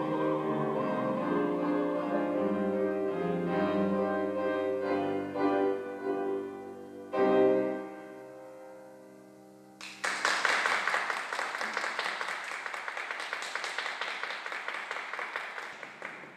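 Grand piano playing the closing bars of a classical art song, ending on a final chord about seven seconds in that rings away. Audience applause starts about ten seconds in and carries on to the end.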